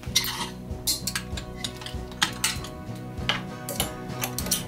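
Clothes hangers clacking against each other and against the rail as garments are pushed along a clothes rack: a string of irregular sharp clicks, over background music.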